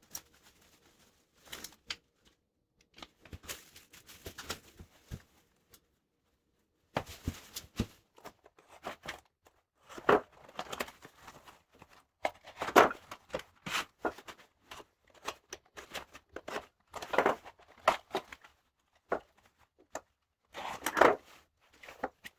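Packing material being torn off and handled: irregular tearing, crinkling and clattering noises, louder swells coming and going.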